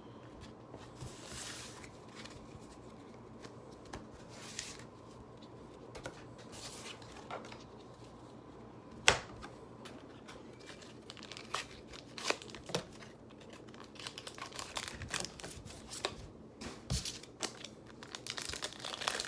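Pokémon card blister packaging being handled and torn open: scattered clicks and short plastic and paper rustles, one sharp click about nine seconds in, then denser crinkling and tearing near the end.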